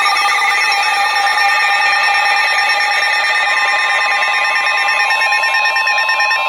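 Electronic emergency-alert alarm: several steady tones sounding together, with a fainter warbling, siren-like tone that fades out. It signals an incoming tornado warning.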